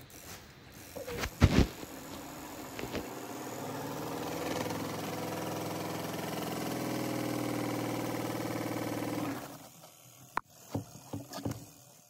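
Spin-tub motor of a Von 10 kg twin-tub washing machine (VALW-10MLW) spinning a wet duvet: it speeds up over a couple of seconds, then runs with a steady hum and cuts off suddenly about nine seconds in. A few knocks come near the start and a few clicks near the end.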